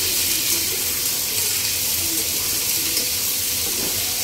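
Sliced onions and a bay leaf sizzling in hot oil in a kadhai, stirred with a spatula, a steady even hiss. The onions are being fried until they turn reddish.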